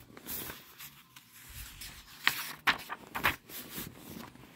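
Paper pages of a picture book being turned by hand: a run of rustles and scrapes, with several sharper crinkles a little over two seconds in.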